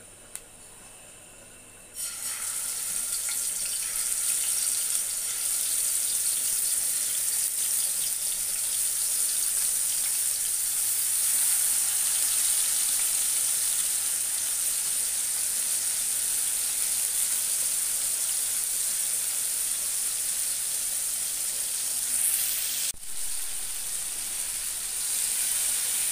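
Coated loitta (Bombay duck) fish pieces sizzling loudly in hot oil in a wok. The sizzle starts suddenly about two seconds in as the fish goes into the oil, and dips briefly near the end.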